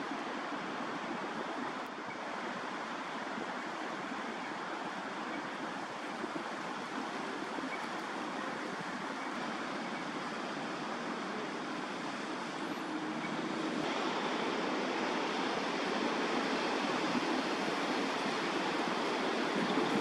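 Steady wash of distant city road traffic, with no clear calls or tones; it grows a little louder about fourteen seconds in.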